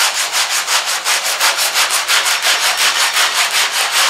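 Hand sanding block with sandpaper stroked rapidly back and forth over body filler on the rear panel of a 1969 Chevelle SS, about four even, scratchy strokes a second.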